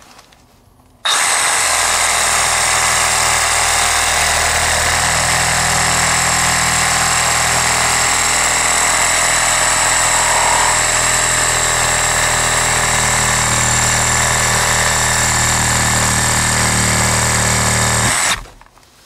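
Milwaukee Fuel Hackzall one-handed reciprocating saw cutting through 1½-inch ABS drain pipe. It runs steadily for about seventeen seconds, starting about a second in and stopping shortly before the end.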